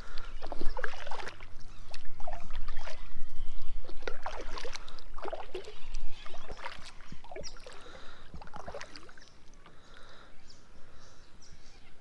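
Kayak paddle strokes: the blades dip and pull through calm water with splashes and drips every second or so. The strokes grow quieter in the last few seconds.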